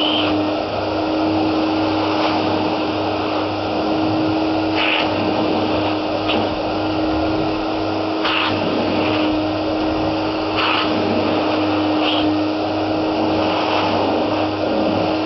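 Hoover Aquamaster S4396 wet-and-dry vacuum's 1050 W motor running steadily with a constant hum, used as a carpet washer. Brief hissy surges come every few seconds over the steady running.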